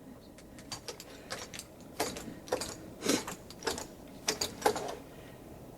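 Clogging shoe taps clicking on a hard floor: a dozen or so sharp, uneven taps as the dancer steps.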